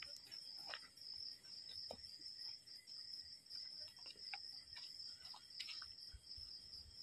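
Faint, steady high-pitched chirring of night insects such as crickets, with scattered faint clicks and rustles on top.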